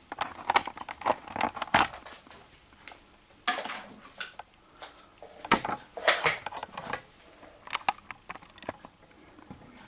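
Irregular short knocks, clicks and rustles in a small room: footsteps and handling noise as a handheld camera is carried up close.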